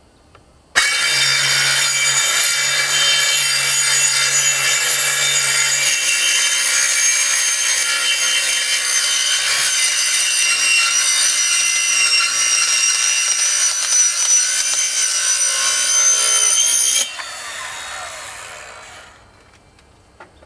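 Cordless circular saw cutting through a polycarbonate greenhouse panel: it starts suddenly about a second in, cuts steadily and loudly for about sixteen seconds, then the blade spins down over about two seconds once the cut is through.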